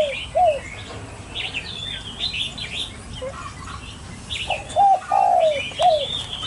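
Red-whiskered bulbuls chirping and warbling in short bursts, over which a dove coos a phrase of short, low notes once at the start and again about four and a half seconds in.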